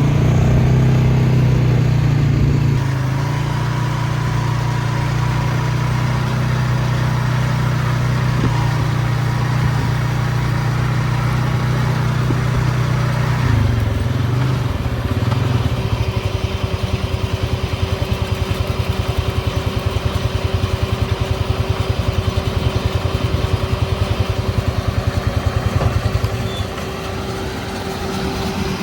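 Vehicle engine running steadily, a low drone; about fifteen seconds in it turns into a fast, even pulsing that eases off shortly before the end.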